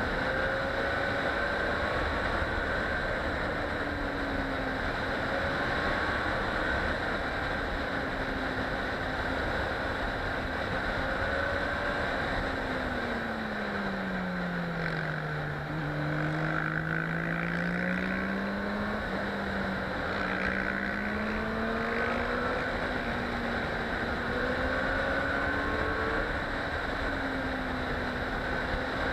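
Motorcycle engine under way with steady wind rush over the helmet camera, its pitch rising and falling as the bike accelerates and slows through bends. About halfway through the pitch falls for a few seconds as the bike slows, then climbs again as it pulls away.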